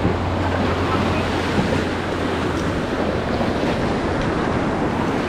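River rapids rushing steadily, with wind rumbling on the microphone.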